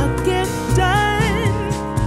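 Pop-soul song with a bass line and backing, and a sung vocal line that wavers in pitch through the middle, played back through an open-back headphone and picked up by measurement microphones.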